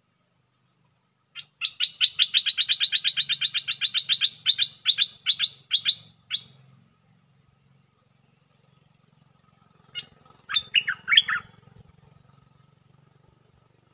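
Stripe-throated bulbul calling: a loud, fast run of repeated sharp chirps lasting about five seconds, then after a pause a short burst of a few notes.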